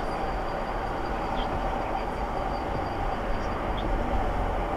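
Steady engine and road drone heard from inside the cabin of a Toyota Land Cruiser 200 twin-turbo V8 diesel under way, with a faint high steady whistle. The owner attributes the whistle to the right-hand turbocharger.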